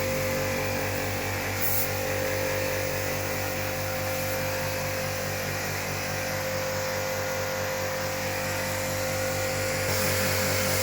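Electric pressure-washer pump running steadily with a constant high hum over a hiss of water spray, as used for cleaning an air conditioner; its low tone shifts about ten seconds in.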